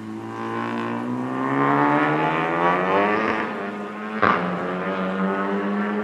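Race car engine getting louder and rising in pitch as it accelerates toward the microphone, with a sharp crack about four seconds in.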